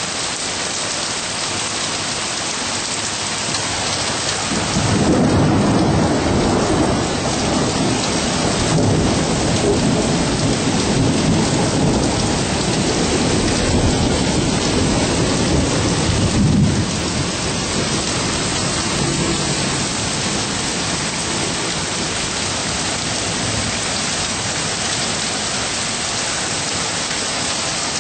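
Steady rain falling, with a long roll of thunder rumbling from about five seconds in until about seventeen seconds, after which the rain goes on alone.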